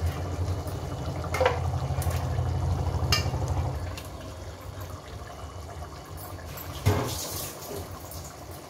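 Raw mutton pieces dropping from a steel bowl into wet masala in a pressure cooker: soft wet plops and splashes with a few light metal clicks, then a louder knock and a brief wet rush near the end as the bowl is tipped out. A low steady hum runs underneath and stops about four seconds in.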